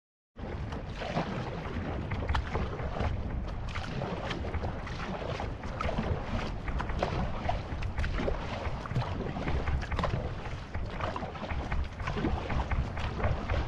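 Outrigger canoe under way: water splashing and rushing past, with wind rumbling on the microphone. The sound cuts in after a short silence about half a second in.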